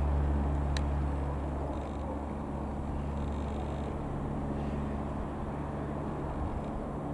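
Single-engine piston light aircraft, a Robin R3000-140, its engine and propeller making a steady low drone that eases slightly after the first couple of seconds. A brief high click sounds about a second in.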